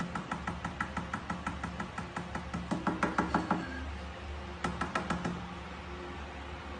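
A quick run of light knocks, about six a second, louder about three seconds in, then a pause and a second short run near five seconds.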